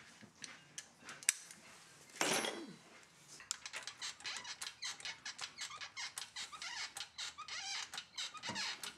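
Hand ratchet clicking in quick back-and-forth strokes, about four or five a second, as a suspension bolt on the rear coilover is tightened with a 19 mm socket. A single short falling squeak comes about two seconds in.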